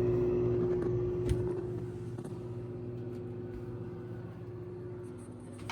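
GE top-freezer refrigerator running with a steady electric hum. There is a faint knock about a second in and a sharp click at the very end.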